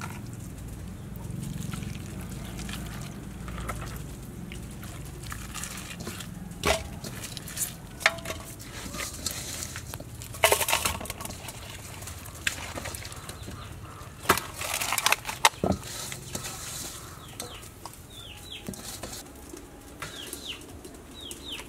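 Chickens clucking now and then, with a few short, sharper calls about halfway through. Light knocks and rustles come from fish and lemongrass being handled in a steel bowl.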